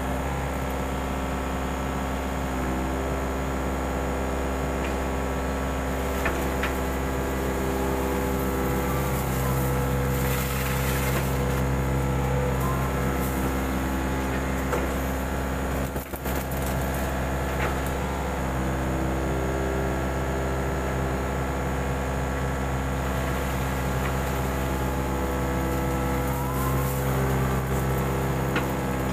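Mini excavator engine running steadily, its note growing stronger for stretches of a few seconds as the machine works.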